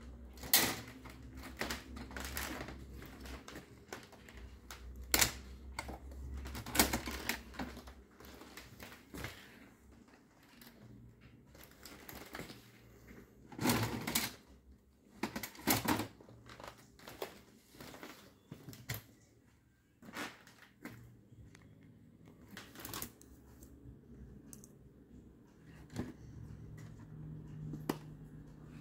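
Irregular plastic clicks, knocks and clunks as a laser printer's covers are opened and its cartridge unit is pulled out and handled by hand.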